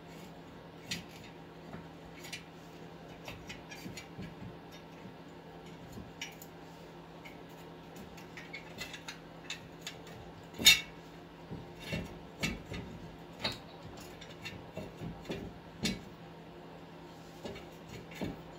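Metal clinks and knocks of a new front wheel hub bearing assembly being handled and turned against the steering knuckle while its splines are worked onto the CV axle and its bolt holes lined up. The clicks are scattered and irregular, with the loudest knock a little past the middle.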